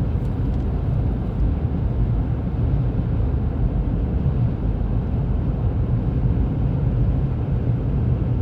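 Steady road and engine noise inside a moving car's cabin, a continuous low rumble with no change in pitch.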